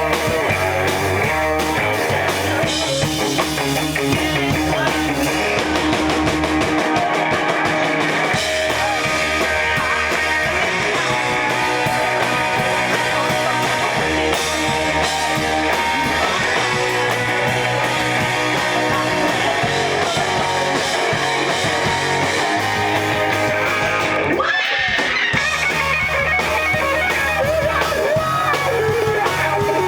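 Live rock band playing electric guitars over drum kit, the low end stepping from note to note. The band briefly drops out near the end, then comes straight back in.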